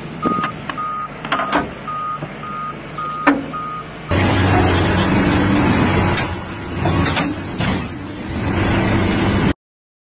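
A heavy machine's reversing alarm beeps about twice a second over engine noise, with several sharp knocks and one loud bang just after three seconds. From about four seconds in, the louder steady run of a Cat tracked excavator's diesel engine takes over, with clanks from the machine, until the sound cuts off suddenly near the end.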